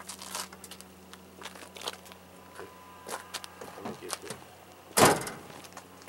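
Scattered light clicks and knocks over a steady low hum, with one loud thump about five seconds in.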